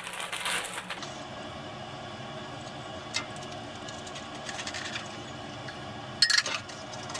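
Plastic wrapping crinkling briefly, then light metallic clinks and taps as the silencer's metal end cap and spark-arrestor baffle are handled, with a sharper clink about six seconds in.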